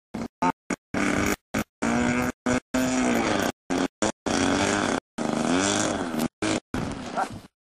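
Motor of a radio-controlled P-51 Mustang scale model running as the model touches down and rolls out on grass. Its pitch rises and falls with the throttle, and the sound cuts out in many short gaps.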